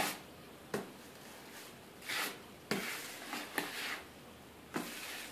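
Drywall knife spreading and smoothing drywall compound across a plastic stencil on a wall: several short scraping swipes.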